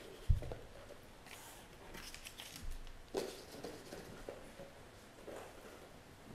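Paper ballots being handed out and handled along a council desk: scattered rustling and small clicks. A single low thump, the loudest sound, comes about a third of a second in.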